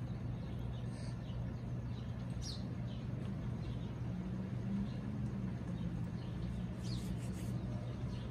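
A steady low hum runs throughout, with a few faint, short, high bird chirps: one falling chirp a couple of seconds in and a small cluster near the end.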